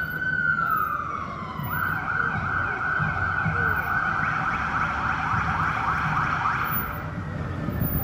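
Electronic emergency-vehicle siren: a wail that peaks and falls away in the first two seconds, then switches to a rapid yelp that runs until near the end.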